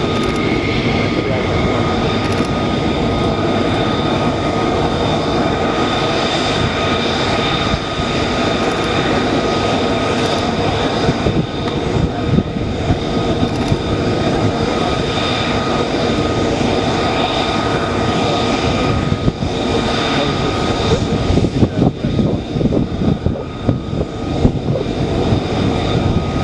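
Lockheed Martin F-35B Lightning II's single jet engine running loud and steady, with a high whine over the noise. In the second half the sound turns ragged and crackling, with sharp peaks in loudness.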